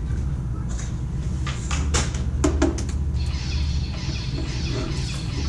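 Combat lightsabers humming steadily through their sound boards, with a quick run of sharp knocks as the blades strike each other about two to three seconds in.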